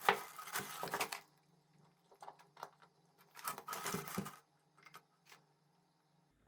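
Hands handling small scooter parts and packaging: two short bursts of rustling with light clicks, one at the start and one about three and a half seconds in, with a few single ticks between.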